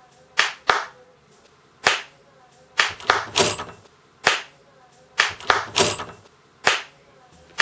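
About a dozen sharp percussive hits at uneven spacing, a few with a short ringing tail, with hush between them.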